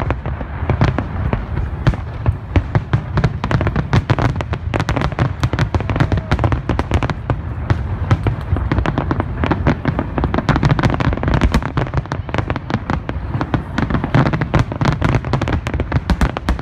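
Fireworks display: aerial shells bursting in a rapid, unbroken barrage of booms and crackles, several reports a second.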